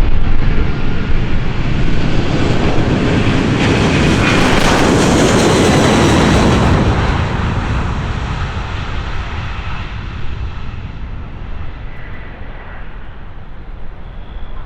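Jet airliner engines at takeoff power passing close: a loud rush with a high whine over the low rumble. It peaks about five seconds in and then fades away as the aircraft moves off.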